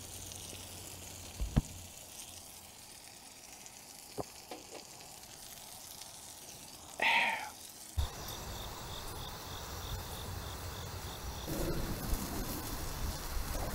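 Food sizzling as it cooks, a steady hiss broken by two light clicks and a brief louder sound about seven seconds in. Near the end the hiss gives way to a different outdoor background, with a faint high chirping about three times a second.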